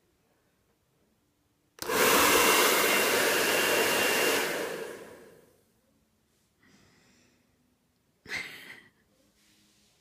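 Handheld hair dryer switched on about two seconds in, blowing loudly for a couple of seconds with a steady motor whine, then switched off and winding down over about a second. About eight seconds in comes a short, sharp burst of breath from the boxer dog.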